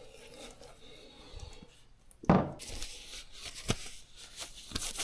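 Hands at work on a motorcycle's oil change: a short loud thump a little over two seconds in, then rustling, crinkling and small clicks.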